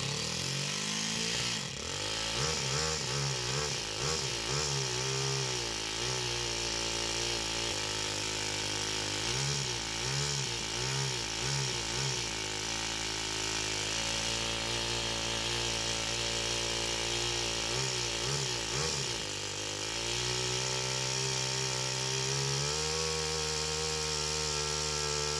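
Toyan FS-S100A single-cylinder four-stroke nitro engine running, revved by remote throttle in repeated short blips, idling steadily between them. Near the end it is held at a higher steady speed.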